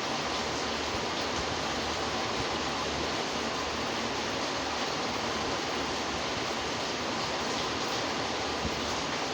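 A steady, unchanging hiss with no separate events.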